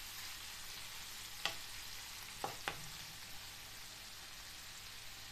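Chicken liver pieces sizzling in oil in a non-stick frying pan, a steady hiss, while being stirred with a spatula. A few sharp ticks come in the first three seconds.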